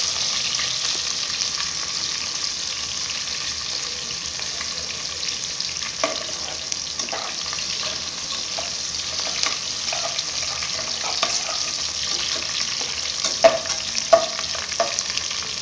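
Chopped shallots and curry leaves sizzling steadily in hot oil in an aluminium pressure cooker, being stirred so that the utensil clicks and scrapes against the pot now and then, most sharply twice near the end.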